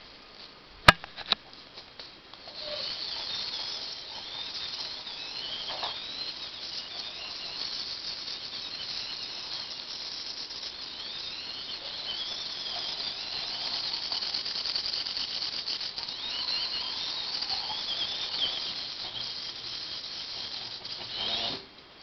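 Small DC gear motors of a homemade robot running, a high whirring with a wavering pitch as it turns to track the IR remote, preceded by a few clicks and stopping suddenly near the end.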